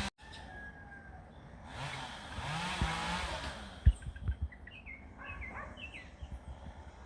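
Small birds chirping in quick, short calls through the second half, after a swell of rushing noise and a couple of dull thumps.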